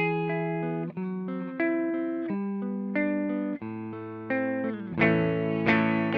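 Electric guitar played through a Joyo Vintage Overdrive pedal: picked chords and single notes change about every second, then about five seconds in a louder, brighter strummed chord comes in.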